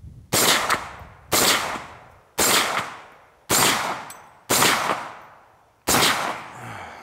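CMMG Mk-W Anvil AR-15 in .458 SOCOM firing six semi-automatic shots, about one a second. Each shot is a sharp report followed by a long fading echo.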